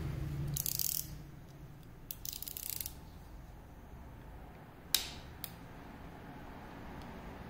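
Snap-off utility knife clicking in two short runs as its blade is slid out, then a single sharp click about five seconds in and a lighter one just after.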